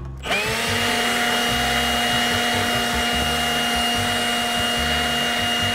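Cordless battery-powered leaf blower switched on: its motor spins up in a quick rising whine, then runs at a steady high whine over a loud rush of air.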